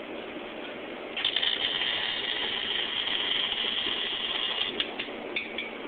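Arc welder laying a weld on an exhaust pipe joint at a glasspack muffler, one steady burst of about three and a half seconds starting about a second in, followed by a few short clicks.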